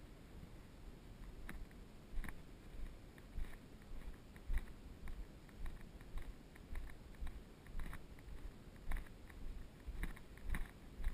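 Close, uneven rustling and crunching with soft thumps, about two a second: a player moving through dry grass and brush with the camera on him.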